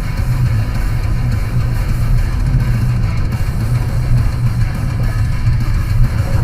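Rock music with guitar, loud and steady, heavy in the bass.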